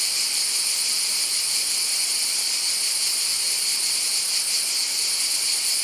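Chorus of cicadas singing, a dense, steady, high-pitched shrill buzz.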